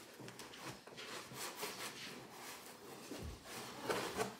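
Rustling and scraping of packaging as items are handled inside a cardboard box, with a low thump a little past three seconds and a louder clatter just before the end.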